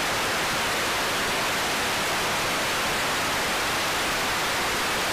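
Loud, steady static hiss: an even, unchanging rush of noise with no tones, voices or rhythm in it.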